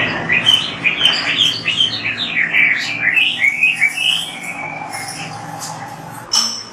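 Oriental magpie-robin (kacer) singing a fast run of short, varied chattering notes that thins out after about four seconds, with a sharp click near the end.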